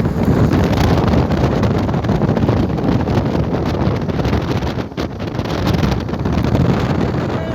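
Strong wind buffeting the microphone, a loud, rough, steady rumble.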